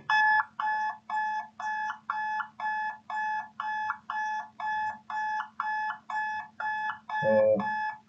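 Simulated alarm buzzer of an emergency fire pump control panel, beeping steadily about twice a second: the overload trip alarm, sounding because the thermal overload relay has tripped on an overloaded pump motor.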